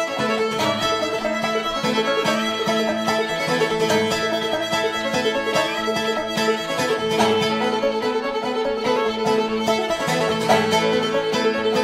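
Bluegrass string band playing without singing: fiddle lead over picked banjo, with upright bass and acoustic guitar. The bass and banjo come in at the start, after a fiddle heard alone.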